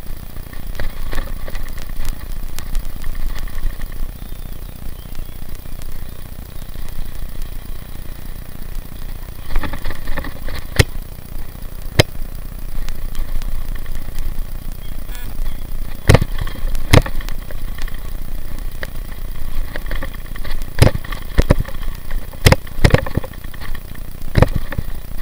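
Bicycle rolling over a rough gravel track: a steady rumble of tyres on loose stones with rattling from the bike, and sharp knocks from jolts over bumps, coming more often in the second half.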